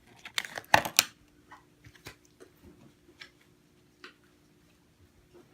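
Trading cards being handled: a short burst of rustling and clicking about a second in, then scattered light ticks and taps.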